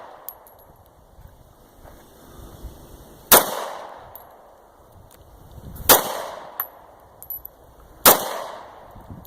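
Three gunshots, unevenly spaced, each with a short ringing echo, and a few light clinks in between.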